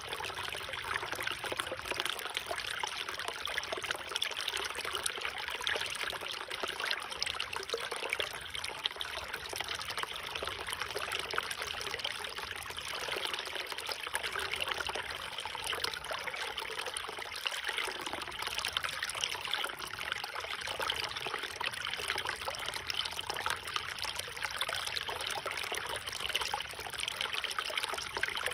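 River water running and trickling steadily, with a fine, even babble.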